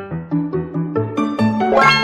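Background music: short, bright pitched notes over a pulsing bass line, with a rising sweep near the end.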